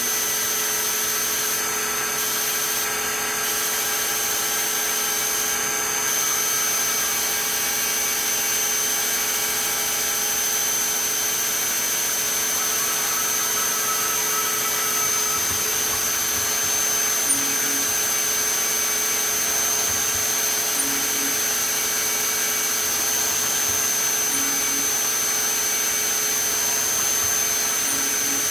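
Fadal CNC vertical mill's spindle running an end mill through a black plastic handle blank, a steady machining whine with a hiss of cutting on the finishing pass. In the second half a faint short double pip recurs about every three and a half seconds.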